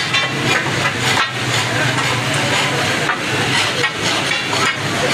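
A metal spatula scraping and knocking on a large tawa griddle, with a sharp clack every second or so, over the steady sizzle of an egg-and-shami mixture frying.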